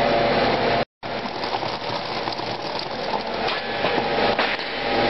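Gas-type peanut roaster running: the steady hum of its chain-plate conveyor and machinery, with a clattering rattle of roasted peanuts tumbling off the belt into a carton. The sound cuts out completely for a moment about a second in.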